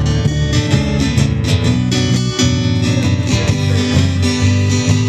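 Instrumental break in a country song: a strummed acoustic guitar with a steel guitar taking the lead.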